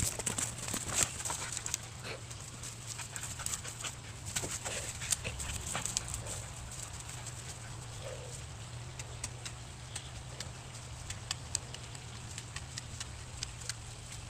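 A dog chewing and tugging at a thick, frayed rope swing: irregular sharp clicks and crackles from teeth working the rope fibres, busiest in the first half and thinning out later.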